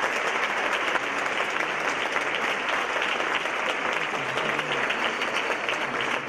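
Audience applauding steadily with dense, continuous clapping.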